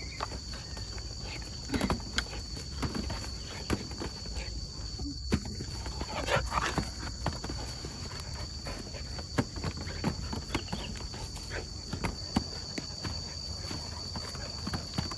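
Scattered knocks, clicks and rustles of handling and movement, a few louder ones standing out, over a steady high-pitched whine.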